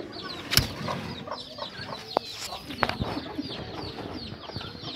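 Many birds chirping in quick, overlapping high calls that fall in pitch. A sharp knock comes about half a second in, and two fainter clicks follow between two and three seconds in.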